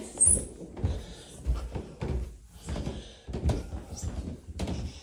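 Footsteps going down carpeted stairs: a run of dull thumps, roughly one every half second.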